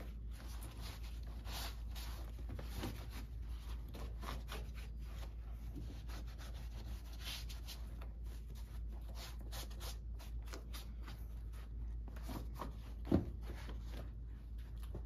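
Microfiber cloth wiping and scrubbing the painted metal around a car's empty tail-light opening, a steady run of quick rubbing strokes, with a single thump about thirteen seconds in.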